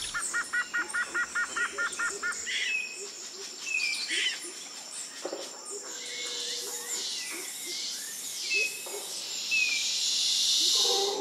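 Birds calling. A quick run of about ten identical calls fills the first two and a half seconds, followed by scattered chirps and short falling whistles, with a high hiss building through the second half.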